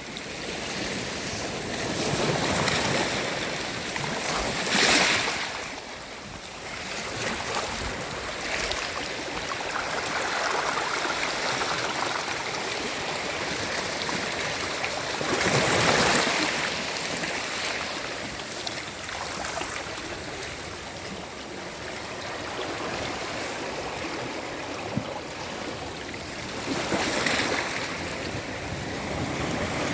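Sea waves breaking and washing up on a sandy beach, a steady surf wash that swells into louder breakers about five seconds in, around the middle, and near the end.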